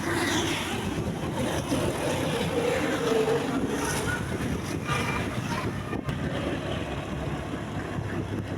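Road vehicle engine and road noise, steady throughout.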